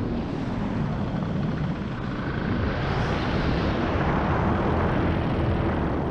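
Wind rushing and buffeting past a GoPro's microphone during a powered-paraglider descent, the paramotor engine left at idle under it. A steady, rumbling noise without pauses.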